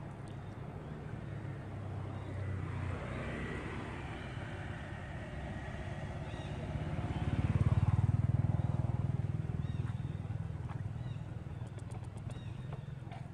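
Small motorcycle engine running, a steady low hum that swells louder for a couple of seconds just past the middle, then eases back.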